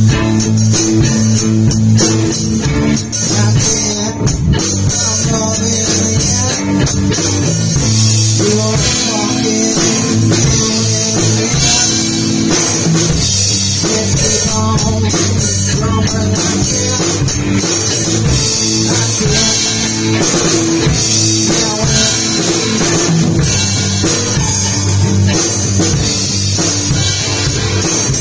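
Live rock band playing a loud, steady jam on two electric guitars and a drum kit with cymbals.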